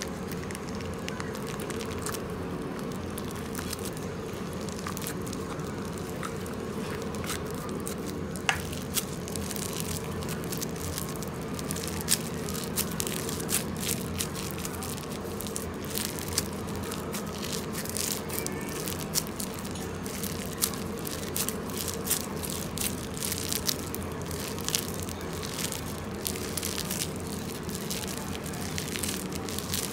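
Clear slime packed with purple beads being squeezed and stretched by hand, giving many small crackles and pops that come more often in the second half, over a steady low hum.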